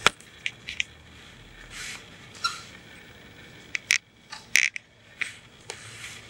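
A cat pawing and nosing at a hard plastic puzzle toy with holes, making a string of irregular sharp clicks and knocks on the plastic, the loudest right at the start and about four and a half seconds in.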